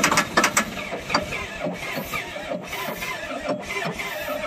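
Diesel engine of a long-abandoned excavator being cranked, firing irregularly in uneven knocks and puffing dark smoke without catching. The knocks come several a second at first, then thin out. It is a sign the engine won't start yet; a dead injector on at least one cylinder was suspected.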